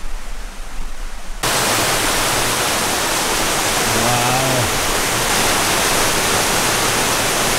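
Steady, loud rushing of a mountain brook's cascades. It starts abruptly about a second and a half in, after a quieter hiss.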